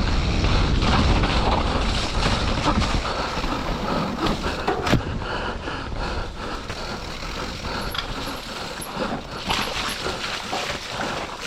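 Mountain bike descending a slick, muddy trail: tyres rolling and sliding through wet mud, with the bike rattling and knocking over bumps and wind rushing on the microphone. The tyres have almost no traction.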